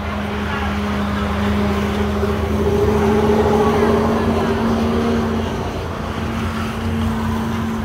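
Steady engine hum from a nearby motor vehicle, growing louder about three seconds in and easing off again.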